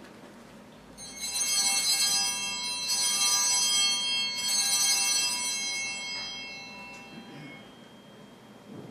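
Altar bells rung at the elevation of the host during the consecration of the Mass, marking the moment the host is raised. A bright, shimmering ring starts about a second in and fades away over the last few seconds.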